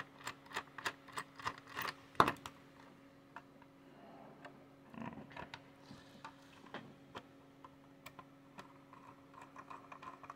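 Precision screwdriver turning a rubber-foot screw in the bottom plate of an Intel NUC mini PC: a run of small quick clicks with one louder click about two seconds in, then sparser clicks. The foot will not go down because the screw is the wrong one.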